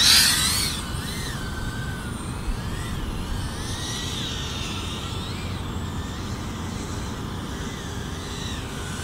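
FPV quadcopter's motors and propellers whining, the pitch rising and falling with throttle, with a loud surge about half a second in. Under it runs a low rumble of wind on the microphone.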